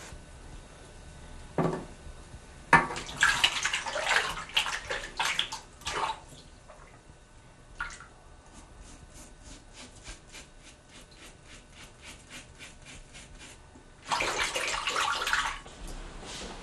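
Water splashing in a bathroom sink in two spells, one a few seconds in and one near the end. Between them a razor scrapes lathered stubble in quick short strokes, about four a second.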